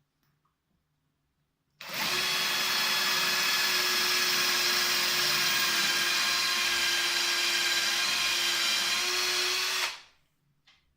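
Power drill fitted with a tile and glass bit, drilling into ceramic tile. It starts about two seconds in, runs at an even speed as a steady whine for about eight seconds, and stops abruptly.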